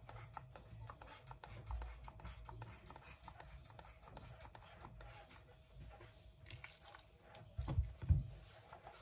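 Hand-twisted spice grinder grinding seasoning over raw steaks: a faint, rapid crackle of small clicks. Near the end come two soft thumps as the steak is handled.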